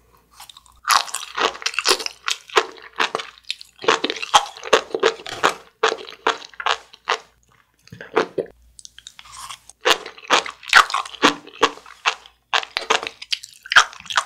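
Sea grapes (umibudo) being chewed: quick runs of crisp popping crunches, with short pauses between runs.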